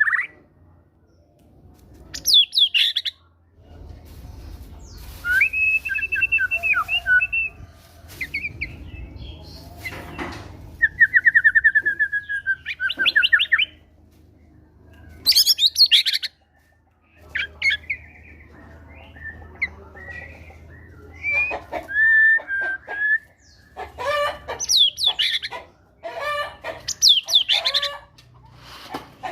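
White-rumped shama singing a loud, varied song in separate phrases: clear whistles, a rapid trill and, near the end, harsh repeated notes.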